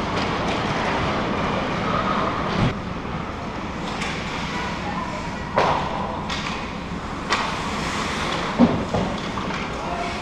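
Ice hockey game in a rink: a steady wash of skating, crowd and player voices, broken by four sharp knocks of sticks and puck spread through it.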